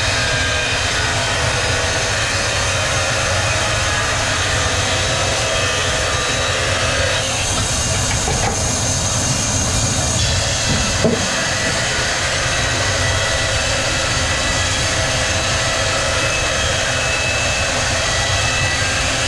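Multi-blade sawmill machinery running with a steady, loud mechanical din, a low rumble and several steady whining tones. A short knock sounds about eleven seconds in.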